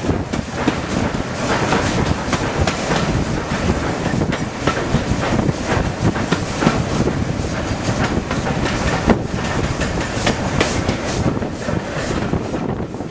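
Steam-hauled train running downhill, its wheels clattering over the rail joints in an irregular clickety-clack over a steady running rumble.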